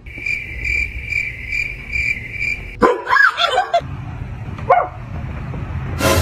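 A high, steady whine that pulses about twice a second, then a dog vocalizing in short yelping calls that bend in pitch, ending with a sharp bark about six seconds in.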